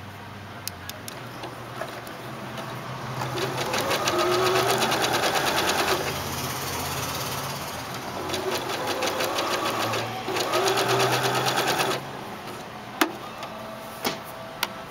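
Janome 3160 sewing machine stitching a blind hem with its blind hem foot, the needle running in a rapid even rhythm. It speeds up about three seconds in, runs slower for a few seconds, speeds up again, then stops abruptly about twelve seconds in. A few sharp clicks follow.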